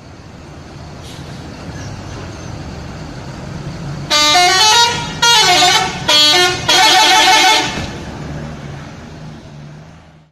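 Bus engine running and growing louder as it approaches; about four seconds in, its multi-tone 'telolet' horn plays a short jingle of stepping notes in four blasts, the last the longest, then the engine runs on.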